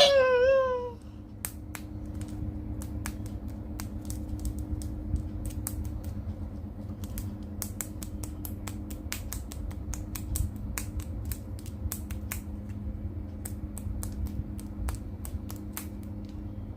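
Irregular light clicks and creaks of a plastic action figure and its packaging being handled, over a steady low hum.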